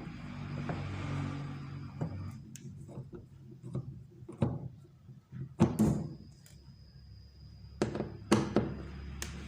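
A series of scattered knocks and thunks, about ten in all, over a low steady hum.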